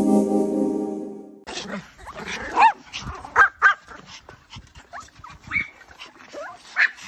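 Several Pomeranians yapping and whining in short, high barks that bend up and down in pitch, starting about a second and a half in. Before them a held musical tone cuts off abruptly.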